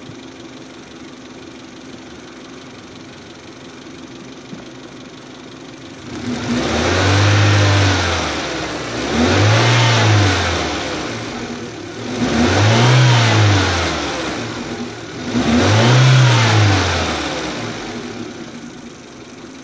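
2001 Mazda 323 engine idling, then revved up and let fall back four times, each rev rising and dropping over about two seconds. The engine is misfiring on cylinders 2 and 3 from a damaged ignition coil that arcs to ground.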